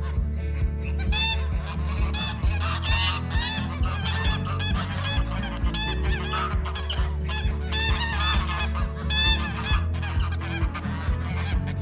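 Geese honking, many short calls repeating and overlapping one another.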